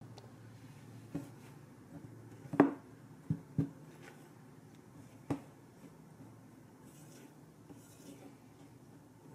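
Silicone spatula stirring dry powdered ingredients in a glass mixing bowl, a soft scraping broken by a few sharp knocks against the bowl, the loudest about two and a half seconds in.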